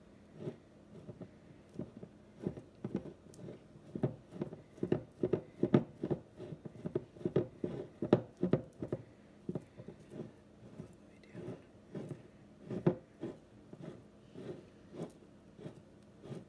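Silicone spatula scraping and stirring thick sourdough starter inside a glass mason jar, giving a quick irregular run of dull taps and knocks against the glass, busiest in the middle with one louder knock later on.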